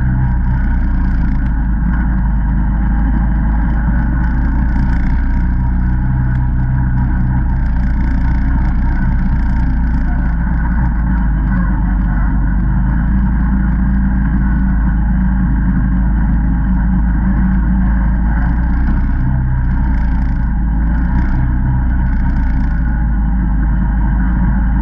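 ATV engine running steadily under way at trail speed, a continuous drone with small rises and dips in pitch as the throttle changes.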